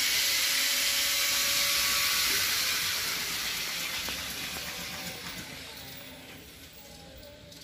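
Steady hiss of compressed air from a paint spray gun applying the textured finish coat to speaker boxes, fading away gradually over the last few seconds.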